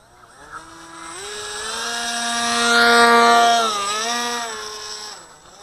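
Model plane's motor and propeller spinning up into a steady whine, dipping briefly and rising again, then winding down near the end.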